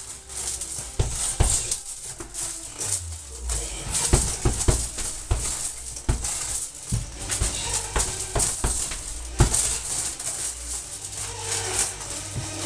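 Red boxing gloves hitting a hanging heavy punching bag in quick, irregular flurries of sharp smacks, with pauses between combinations.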